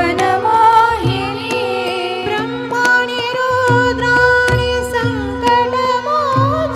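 Live Indian classical music: a gliding melodic line over a repeating pattern of low drum strokes.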